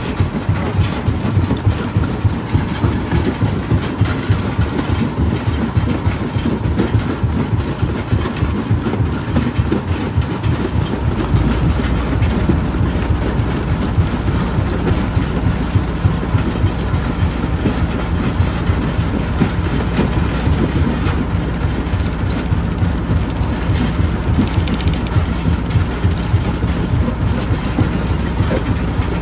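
Stone jaw crusher working, its jaws cracking and grinding rock with a steady, rapid clatter of breaking stone and falling fragments. A deeper low rumble comes in about eleven seconds in.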